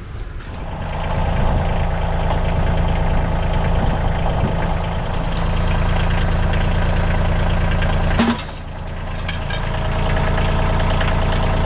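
A machine's engine running steadily, swelling over the first second, with a brief drop about eight seconds in before it runs on.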